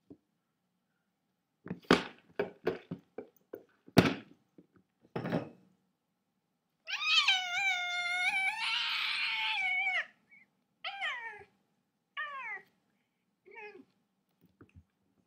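Domestic cat meowing: one long drawn-out yowl of about three seconds with a rough, breathy middle, then three short meows falling in pitch. Before it, a run of sharp knocks and taps, the loudest about four seconds in.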